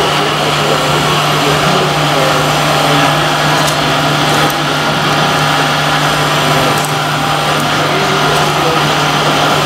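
Steady whirring hum of a model Liebherr R 960 SME crawler excavator's electric hydraulic pump running as the arm and bucket work, with a few faint ticks.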